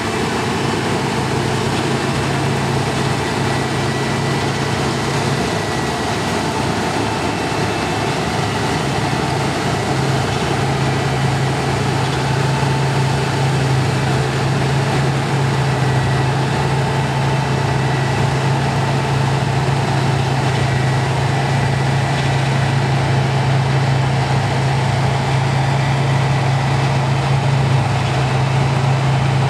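New Holland CX combine harvester working a wheat field: a steady low engine drone over an even rushing noise from the machine, growing slightly louder toward the end.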